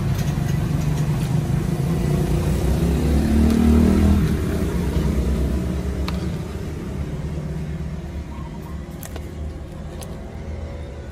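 A motor vehicle's engine rumbling close by, rising in pitch as it revs about three to four seconds in, then fading away. A few faint clicks come later.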